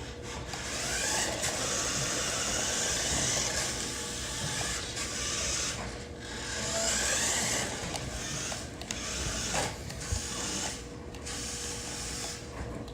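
Electric motor of a toy remote-control car whirring, its whine rising in pitch as it speeds up twice, with short breaks when the throttle is let off.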